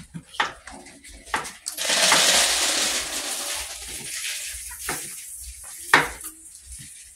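A kitchen knife chopping green pepper on a wooden cutting board, a few scattered knocks of the blade on the board. Partway in, a loud hissing noise swells up for about three seconds and fades away.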